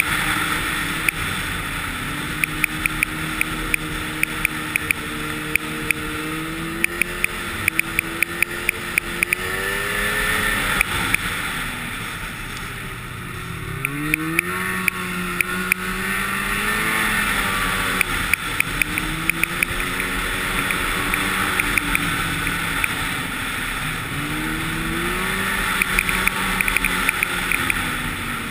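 Snowmobile engine running at trail speed, its pitch rising and falling with the throttle; it eases off around the middle, then pulls back up as the sled accelerates. Rapid clicks and a steady rushing hiss run over the engine.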